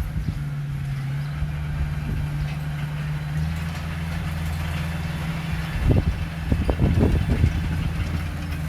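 Heavy diesel engine of earthmoving machinery running steadily, its note shifting a little about a third of the way in. A run of knocks and clanks comes about six to seven and a half seconds in.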